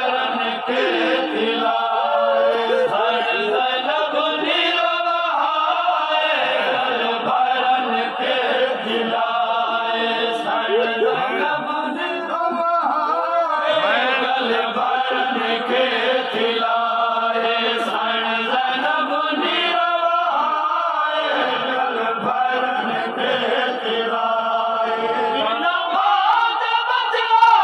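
A group of men chanting together in a Shia mourning chant (noha), many voices in unbroken sung phrases.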